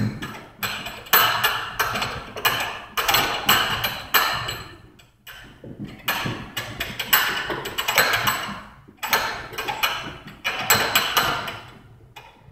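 Heavy battle ropes slapping the gym floor in a steady run of strokes, each a short burst of noise, with a brief lull about five seconds in.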